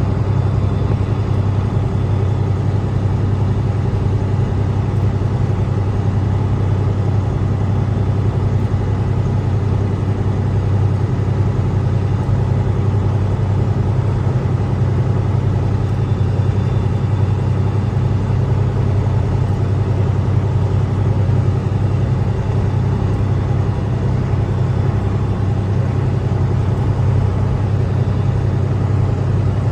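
John Deere combine harvester's diesel engine running steadily, a loud, even low drone with no change in speed.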